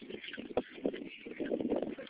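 Kick scooter rolling over the ground, with irregular knocks and rattles.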